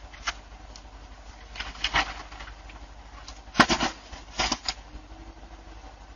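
Doorbell-camera audio: a steady low hum with a few scattered sharp clicks and knocks, the loudest a little past halfway.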